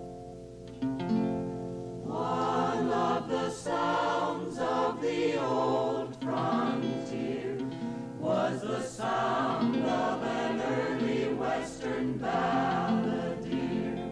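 Music: a choir singing over instrumental accompaniment, after two held chords in the first couple of seconds.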